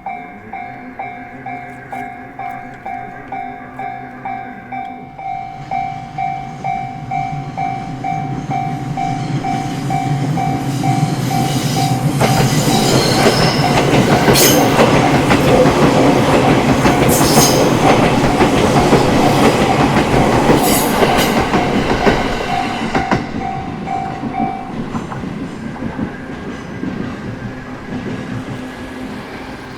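Japanese level-crossing warning bell ringing about twice a second while an electric train on the JR Togane Line passes through the crossing. The train's rumble builds from about six seconds in, is loudest in the middle with rhythmic clacking of wheels over rail joints, then fades. The bell stops about five seconds before the end.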